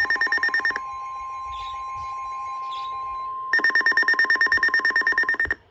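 Emergency Alert System tones between weather warnings: a loud, very rapid pulsing electronic buzz, then a steady single tone held for nearly three seconds, then the rapid pulsing again, cutting off sharply just before the end.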